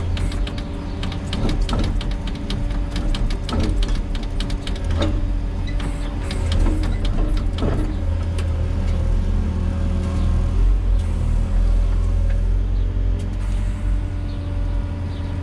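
Volvo EWR150E wheeled excavator's diesel engine running steadily under hydraulic work, with a rapid series of sharp clicks and knocks over the first half or so.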